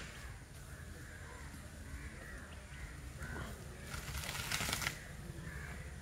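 Crows cawing now and then in the background, with a burst of rushing noise lasting about a second near the end.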